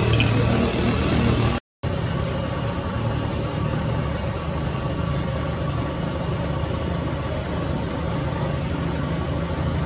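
An engine running steadily, a constant low hum that cuts out for a moment about two seconds in.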